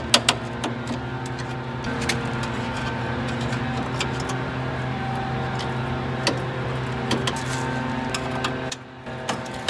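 A few sharp clicks and snaps as the plastic retaining clips of a BMW E30 kidney grille are pried loose with a small tool, over a steady low hum that drops away near the end.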